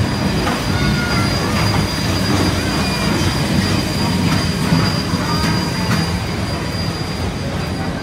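Queensland Railways BB18¼ class steam locomotive 1089 and its tender rolling slowly past, wheels rumbling steadily on the rails, with scattered clanks and several short, high wheel squeals.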